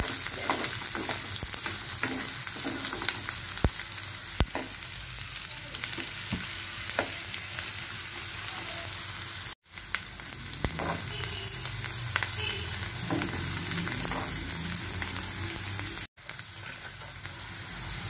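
Chopped red onions sizzling in hot oil in a nonstick pan, stirred with a metal spatula that scrapes and clicks against the pan now and then. The sound drops out for an instant twice.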